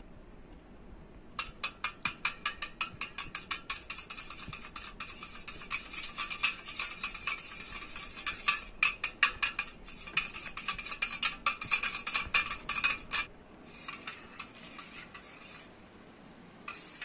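Wire balloon whisk beating curd in a stainless steel bowl: the wires click fast and rhythmically against the metal side, about five strokes a second, starting a second and a half in and thinning to a few scattered strokes near the end. The curd is being beaten to a creamy texture.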